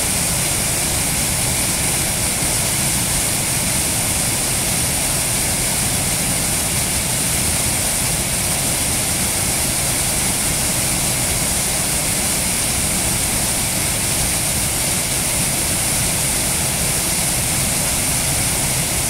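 Water pouring over a low concrete weir into a shallow stream: a steady rushing noise that never changes.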